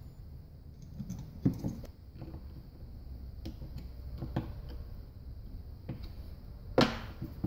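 Small metal parts of a Hydra-Matic transmission valve body clicking and tapping as they are fitted by hand, a few light taps spread out, then a louder knock against the metal workbench near the end.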